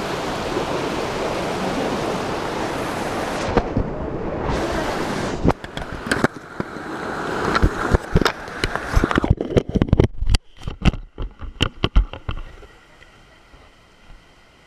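Loud steady rushing of a waterfall close to the microphone for about five seconds. It gives way to a run of sharp knocks and clicks, like the recording phone being handled, and then a much quieter stretch.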